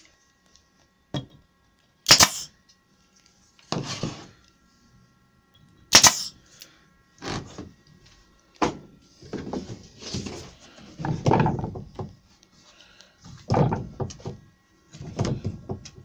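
Half-inch MDF routing jig being handled on a workbench: a series of knocks and thumps with scraping and shuffling between them. The two sharpest, loudest knocks come about two and six seconds in.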